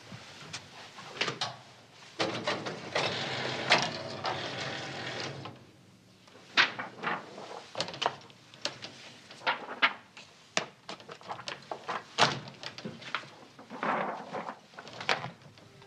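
Stiff X-ray film sheets being handled and clipped onto a light box viewer: a few seconds of rustling and sliding, then a run of sharp snaps and clicks as the films flex and the clips catch.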